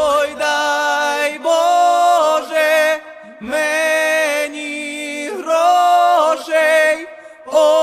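Song soundtrack: unaccompanied voices singing long held notes in short phrases, sliding between pitches, with brief gaps between phrases.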